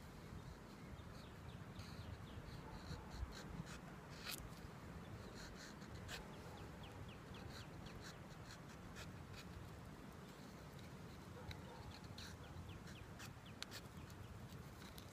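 Pocket knife blade shaving thin curls off a pine stick to make a feather stick: a faint, irregular run of short scraping strokes and small clicks.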